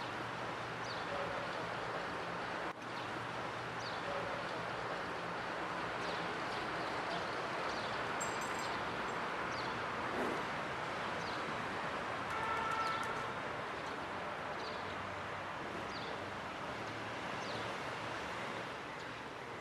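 Steady outdoor city background noise, with a short high chirp repeating about once a second. About twelve seconds in, a brief ringing tone rises above it.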